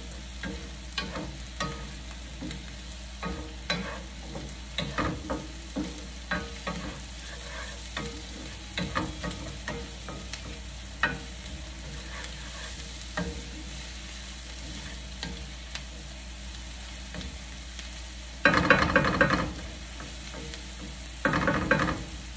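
Onions, garlic, ginger and mushrooms frying in a pan for a stir fry, being stirred: a utensil scraping and clicking against the pan over the sizzle. Near the end come two louder spells of scraping and clatter, a couple of seconds apart.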